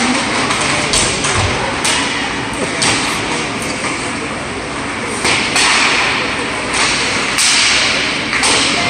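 Live ice hockey play in an indoor arena: skate blades scraping the ice and sharp clacks of sticks and puck, over the chatter of spectators.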